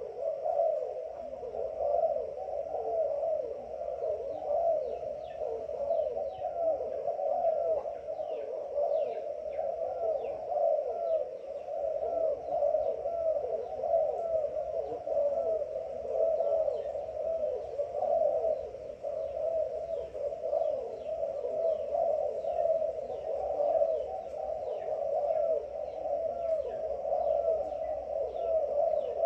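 Many doves cooing at once in a dense, continuous chorus of overlapping low calls, with short high chirps scattered over it.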